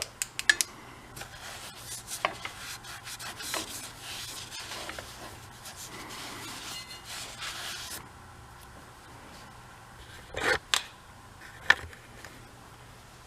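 Hand-working of small-engine teardown parts: several seconds of rubbing and scraping that stops about two-thirds of the way in, followed by two sharp knocks a little over a second apart.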